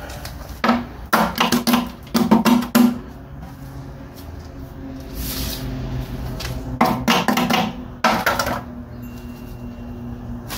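Gas grill's sheet-metal drip tray being handled and scraped out: clattering knocks and scraping of the tray and its fat-and-grease gunk, in two bursts, one in the first few seconds and another about seven seconds in.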